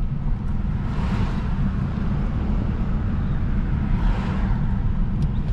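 Road traffic: a steady low rumble, with vehicles passing by about a second in and again about four seconds in.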